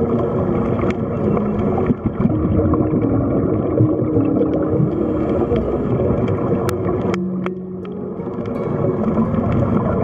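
Ambient music with long held low notes that shift in pitch every few seconds, laid over underwater ambience of gurgling, bubbling water with a few sharp clicks.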